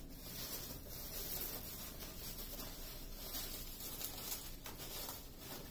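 Faint rustling and rubbing of plastic bubble wrap around a rolled canvas as it is handled and shifted on a table.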